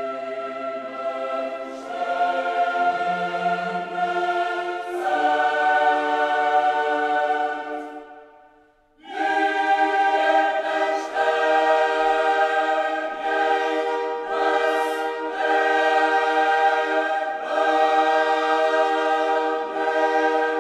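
Background choral music: a choir singing sustained chords, which fade out about eight seconds in, followed a second later by a new sung passage.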